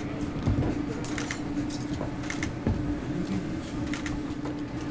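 Light clicks and clatter of chopsticks and dishes at a restaurant counter over a steady low hum.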